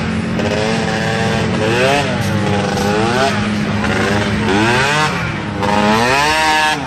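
Small youth ATV engine revving up and down over and over, each rev rising and falling in pitch, with a steady lower hum underneath.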